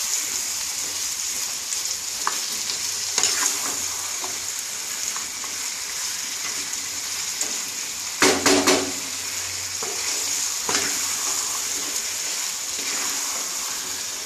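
Marinated chicken pieces sizzling in oil in a kadai as they are stirred and turned with a wooden spatula, the slow frying (kosha) stage of the curry. The spatula scrapes the pan now and then, with a louder run of scrapes and knocks about eight seconds in.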